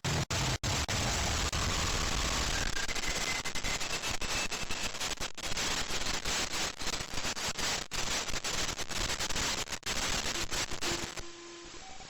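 Radio receiver tuned to 146.328 MHz in the 2-metre VHF band, giving out loud hissing noise chopped by rapid, irregular dropouts into a stuttering rattle: an unidentified noise signal on the frequency. The noise cuts off sharply about eleven seconds in, leaving a fainter hiss with a few short tones.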